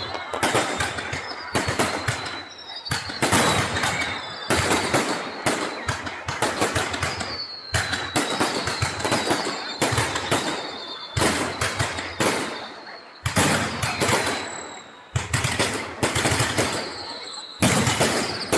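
Fireworks display: clusters of rapid bangs and crackles going off every second or two, with high whistles that slide slowly downward in pitch between them.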